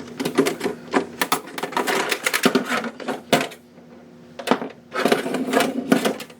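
Hard plastic lamp parts being handled: a run of irregular clicks, clatters and rattles over a steady low hum, with a quieter lull about four seconds in.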